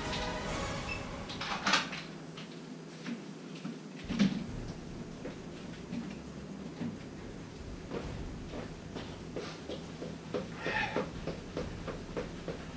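Knocks and clicks of things being handled at a wall, with two louder thumps in the first few seconds. Near the end come light, quick, even footsteps on a wooden floor as jogging in place starts.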